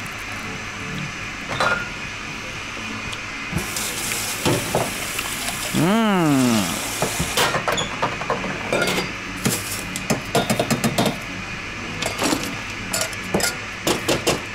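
Bar tools clinking and clattering: a Boston shaker's mixing glass pulled from its metal tin and set down, then a scoop digging and rattling in crushed ice. A short whining tone dips and rises midway.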